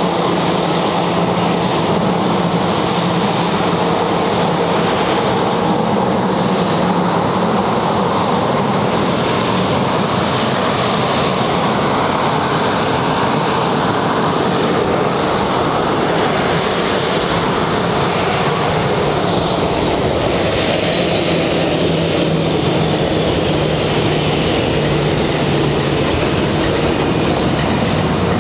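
Boeing 737-800's CFM56-7B turbofan engines running steadily as the airliner taxis: an even jet roar with a thin high fan whine that shifts slightly in pitch past the middle.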